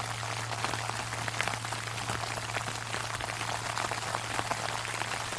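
Sleet falling on an umbrella: a steady hiss of small ticking drops. Under it, the low steady hum of a large Buddhist temple bell still rings on from its last strike.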